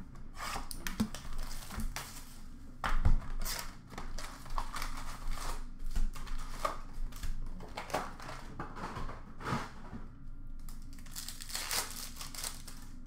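Hands opening a retail box of Upper Deck hockey cards and tearing into the foil card packs: a run of crinkling and tearing wrapper sounds, with a loud knock about three seconds in.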